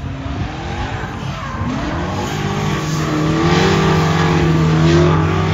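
Several drift cars running in a triple tandem, their engines revving up and down together and getting louder as they approach, with tyre noise rising from about two seconds in.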